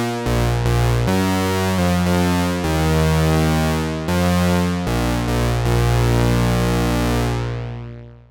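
Behringer 2600 analog synthesizer playing a run of bright, buzzy sustained notes with a strong bass, changing note every half second to second and a half. The last note is held and fades out near the end.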